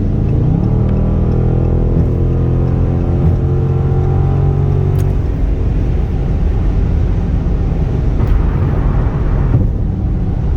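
2020 Dodge Charger Scat Pack's 392 (6.4-litre) HEMI V8 under hard acceleration: the engine note climbs about half a second in and holds loud for a few seconds, then cuts off about five seconds in as the throttle is lifted, leaving road and wind noise.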